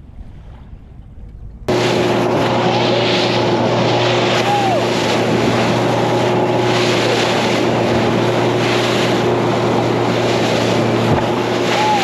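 Outboard motor driving a bass boat at speed over choppy water, a loud, steady run mixed with wind on the microphone and water rushing past the hull. It cuts in abruptly about two seconds in, after a quieter stretch of wind and lapping water.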